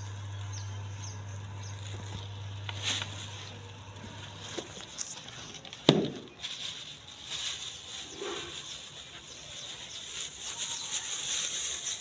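Clear plastic food bags crinkling and rustling as they are handled, with a single sharp knock about six seconds in. A steady low hum runs underneath at first and stops about four and a half seconds in.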